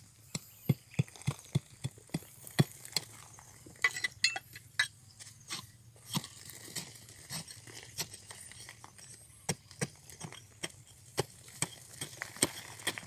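A hand-held metal bar is jabbed again and again into crumbly dark rock and gravel, giving a run of sharp clinks and crunches. The strikes come about three a second at first, then fall irregular.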